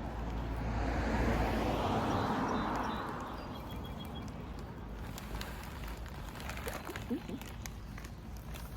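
Birdseed being poured into a bird feeder: a grainy hiss that swells and fades over about three seconds. A few faint chirps follow later.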